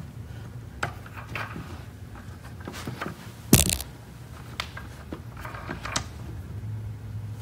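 Clicks and knocks from the caster-wheel height adjusters of a Lagler Flip floor edger, turned and set by hand, with one sharp knock about three and a half seconds in. The wheels are being raised to ease a cut that is too steep at the edge.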